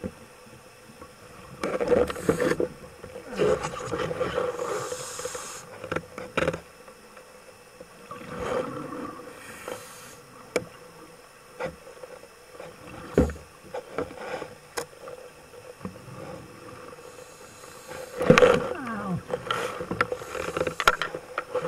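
Underwater noise: a steady low hum under irregular knocks, clicks and gurgling bursts, the loudest about 18 seconds in, with a falling tone just after it.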